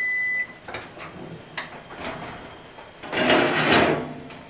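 An oven's steady electronic beep stops half a second in, a few clicks and knocks follow as the oven door is opened, then a metal baking tray scrapes out along the oven's rack rails for about a second.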